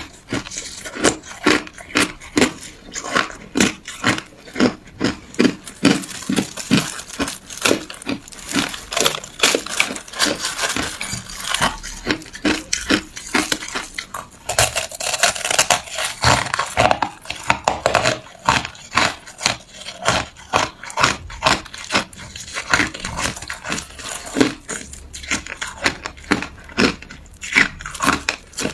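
A person biting and chewing ice close to the microphone: a steady run of sharp crunches, a few each second.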